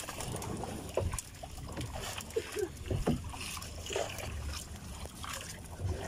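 Wet gill net being hauled by hand over the side of a small outrigger boat: water splashing and dripping off the mesh, with irregular knocks against the hull.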